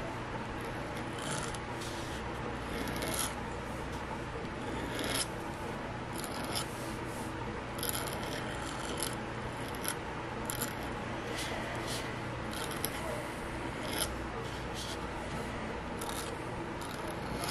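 A pen nib scratching across paper in quick, irregular strokes, as in drawing flourishes, over a steady low hum.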